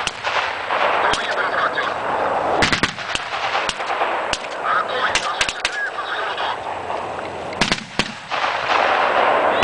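Gunfire from automatic rifles, in irregular bursts and single shots, with two heavier bangs about five seconds apart.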